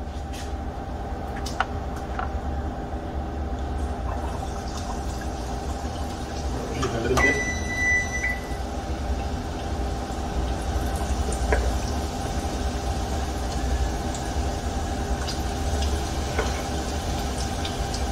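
Battered cauliflower pieces frying in hot oil in a saucepan, the sizzle filling in from about five seconds on as more pieces go in, over a steady hum. A short high beep sounds about seven seconds in.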